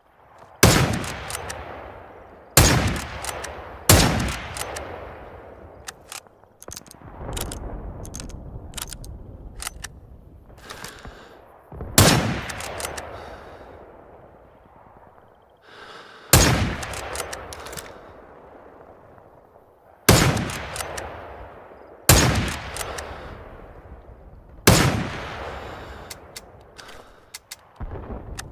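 Scoped Mosin-Nagant M91/30 bolt-action rifle firing its 7.62×54mmR rounds, about eight single shots spaced unevenly a few seconds apart, each trailing off in a long echo. Smaller clicks and rattles sound between the shots.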